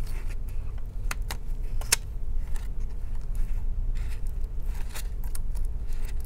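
Scattered light clicks and scrapes of a small pry tool and fingers working at a laptop's heatsink and internal parts, over a steady low hum.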